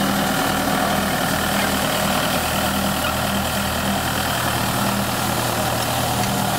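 Steyr Kompakt 4065 tractor's diesel engine running steadily as the tractor pulls a rotary hay rake across the field.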